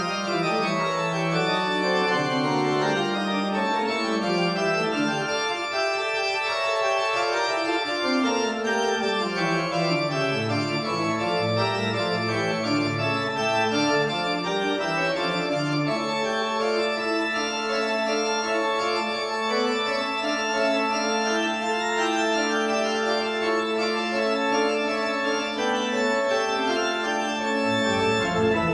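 Pipe organ playing several moving lines at once; about halfway in, a low note is held steadily beneath the moving upper parts until near the end.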